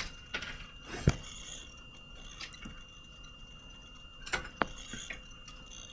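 A few scattered light taps and clicks, the sharpest about a second in and another pair near four and a half seconds, over a faint steady high-pitched whine.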